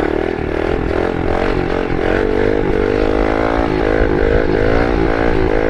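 Kawasaki KLX110 pit bike's small single-cylinder four-stroke engine revving hard as the bike accelerates, its pitch climbing steadily with brief small dips along the way.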